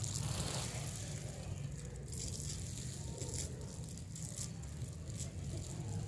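A flock of Sherazi pigeons pecking at feed on a concrete yard: a dense, irregular patter of small clicks, over a steady low rumble.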